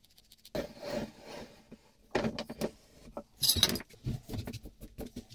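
Tools and a small wooden block being handled on a wooden workbench: three clusters of knocks, clatter and rubbing with scattered clicks between them, the loudest about three and a half seconds in.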